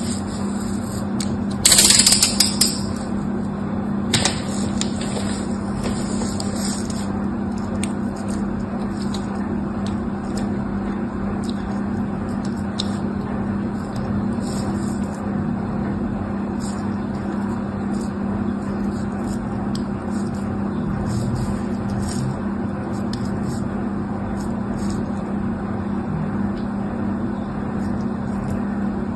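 A small blade scraping and cutting into a bar of soap in short, light scratchy strokes, over a steady low hum. There is a louder crisp scrape about two seconds in.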